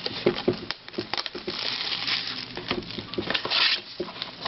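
Rustling and crinkling of a sealed trading-card box's plastic wrap and cardboard being handled, with scattered clicks and two longer crinkling stretches.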